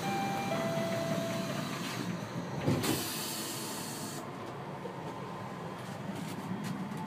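Interior of a suspended monorail car standing at a station: a steady low hum of the car, with a two-note tone in the first second and a half. A thud comes about two and a half seconds in, followed by a loud hiss of released air lasting just over a second.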